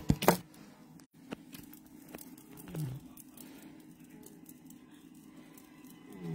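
A few sharp knocks of the phone being handled at the start. These are followed by two short, low vocal sounds that fall in pitch, about three and a half seconds apart, over a faint steady hum.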